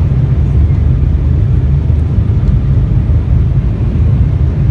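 Airliner cabin noise: a loud, steady low rumble of the engines and rushing air heard from inside the cabin.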